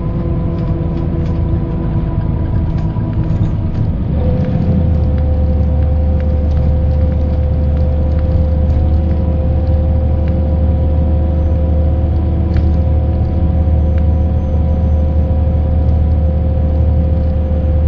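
Mercedes-Benz O408 bus running under way: OM447hLA diesel engine and drivetrain with a low rumble and several steady whining tones. About four seconds in, the tones change pitch and the rumble gets stronger, then the sound holds steady.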